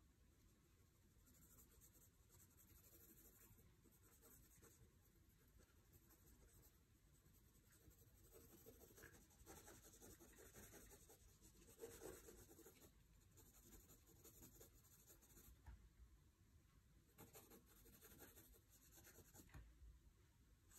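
Pencil strokes scratching faintly on sketchbook paper, in runs of quick strokes with short pauses between.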